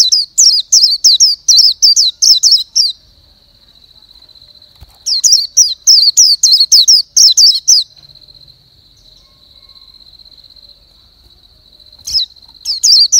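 A bird singing bouts of rapid, falling whistled notes, about four a second, each bout lasting about three seconds and repeated three times, over a steady high thin tone.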